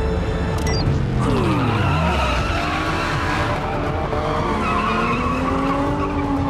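Sports car engine revving while its tyres squeal in a drift. The engine note falls away early on, then climbs steadily through the second half, over film score music.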